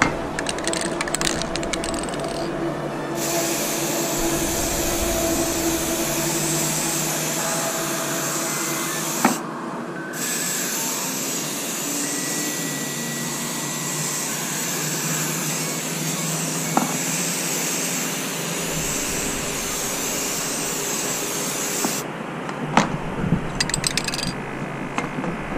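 Rust-Oleum NeverWet top-coat aerosol can hissing steadily as it is sprayed onto a kayak paddle blade, in two long bursts with a short break about nine seconds in. The spray stops a few seconds before the end, followed by a few clicks.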